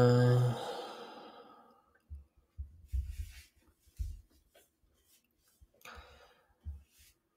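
A man's long, voiced tired sigh that ends about half a second in and trails off into a fading breathy exhale, followed by a few faint low knocks.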